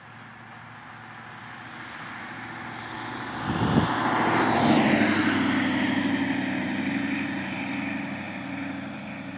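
An engine passing by. It builds steadily, is loudest about four to five seconds in as its pitch falls, then slowly fades.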